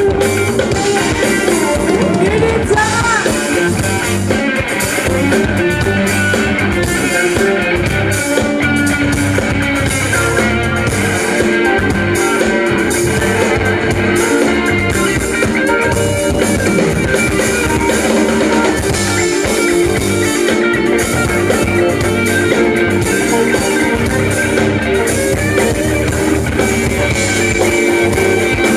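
A live band playing: electric guitar over a drum kit and electric bass, loud and continuous.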